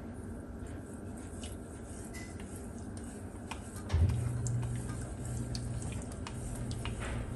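Millet being swirled by hand in water in a stainless steel bowl to wash it and let the small stones sink: faint sloshing and drips with small clicks against the steel. A steady low hum starts about four seconds in.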